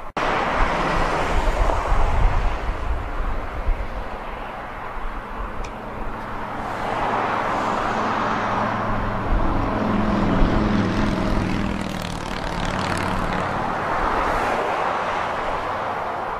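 An engine droning, swelling and rising in pitch about ten seconds in, over a steady rumble of wind on the microphone.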